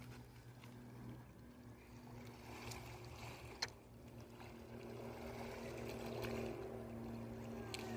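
A motor running steadily in the distance, a low even hum, with a single sharp click about three and a half seconds in.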